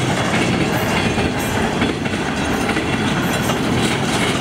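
A freight train's empty intermodal flat wagons rolling past close by: a steady, loud rumble of steel wheels on rail with the clickety-clack of wheels over rail joints.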